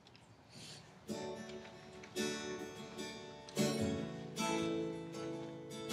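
Acoustic guitar strumming slow chords as the intro of a song, before any singing. The first chord comes about a second in, and each chord rings on until the next.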